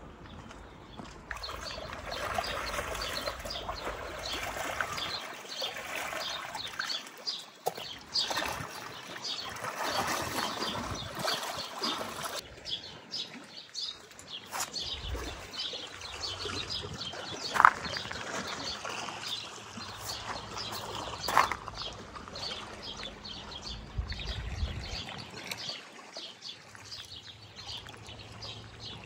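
Birds chirping and singing in quick repeated notes over a soft wash of trickling, lapping water; two short, louder sharp sounds stand out past the middle.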